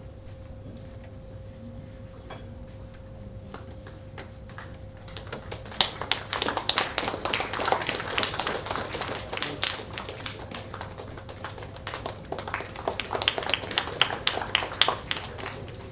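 Faint steady hum, then a group of people clapping: the applause starts about five seconds in with many separate claps, eases off midway, picks up again and stops just before the end.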